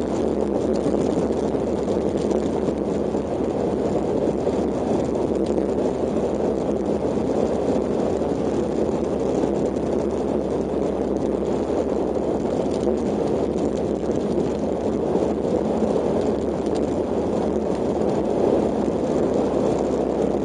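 Kawasaki KLX125 trail bike's single-cylinder four-stroke engine running at a steady pace while it rides along a dirt forest road, with no revving or gear changes standing out.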